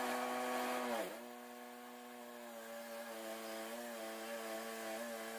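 Woodmizer LT10 bandsaw mill running as it saws a black walnut log. Its pitch sags briefly about a second in and comes back up, then it runs at a steady pitch with a slight wavering.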